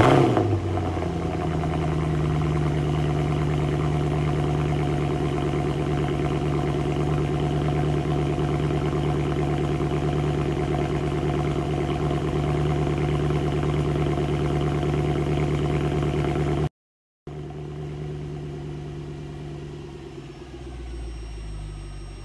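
Mercedes-Benz C63 AMG's 6.2-litre M156 V8 firing up with a loud flare at the start, then settling into a steady idle through its quad exhaust. The sound breaks off about 17 seconds in and comes back quieter, with a deeper rumble swelling near the end.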